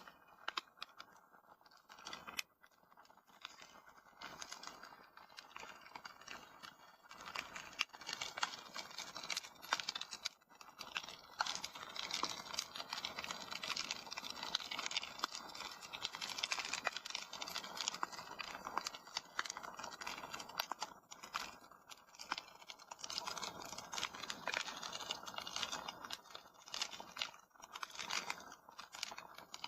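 Wood fire crackling in a fireplace: a dense, uneven run of small pops and snaps over a soft hiss.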